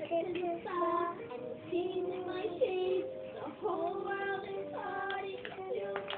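A child singing a song, a melody of held notes.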